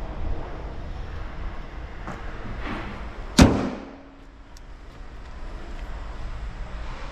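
A single loud slam about halfway through, ringing briefly, over steady low background noise.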